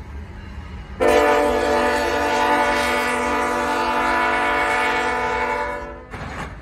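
CN freight locomotive's air horn sounding one long blast of several notes together, starting about a second in and lasting about five seconds, over the low rumble of the passing train.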